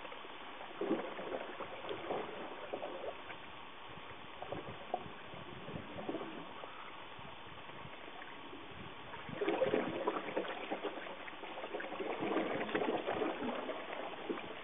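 Lake water lapping and trickling close by, with small irregular splashes that get busier about ten seconds in and again near the end.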